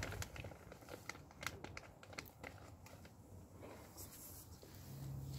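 Faint rustling and scattered light clicks, busiest in the first couple of seconds, with a low steady hum coming in near the end.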